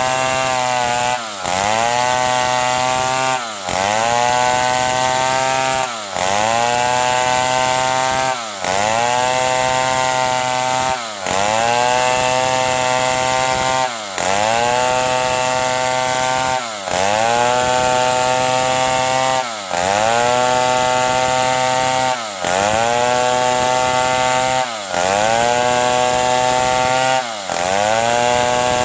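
Stihl 070 two-stroke chainsaw running at high revs while sawing wood, its engine note dipping briefly and rising back about every two and a half seconds.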